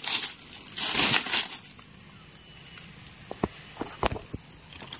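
Rustling and crackling in dry leaf litter and twigs as a fallen durian is picked up and handled. It is loudest at about one second, with a few short sharp clicks between about three and four seconds in. A steady high-pitched insect drone runs underneath throughout.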